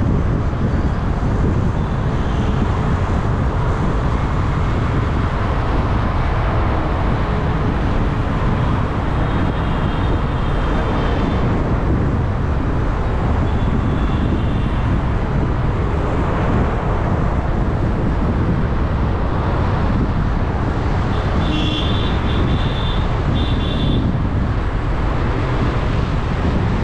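Steady road and traffic noise from a moving vehicle, heavy with low rumble. Short high beeps of car horns from the surrounding traffic come a few times, most clearly in two bursts about three-quarters of the way through.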